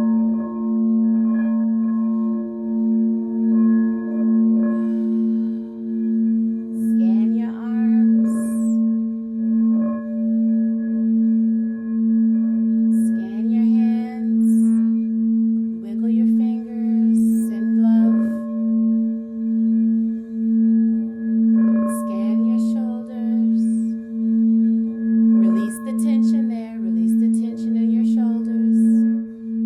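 Singing bowl sounding a sustained low tone that pulses and wobbles steadily, with fainter overtones ringing above it. Every few seconds a brief, higher, wavering sound comes and goes over the tone.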